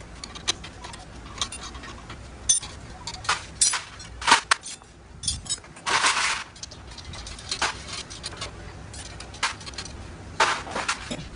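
Metal hand tools and motorcycle parts clinking and clanking in irregular short knocks, with a longer rattle about six seconds in, as a mechanic works on the exhaust and engine area of a Honda Dream.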